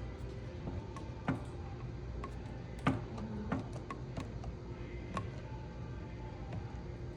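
A handful of irregular sharp clicks and taps over a steady low hum, the loudest about three seconds in.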